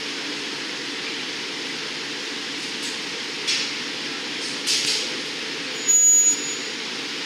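Steady roar of a glass studio's furnaces, glory holes and exhaust fans. Over it come three short noisy bursts in the second half, from the glassblower's steel tools working the glass on the pipe. The last burst is the loudest and carries a brief high ring.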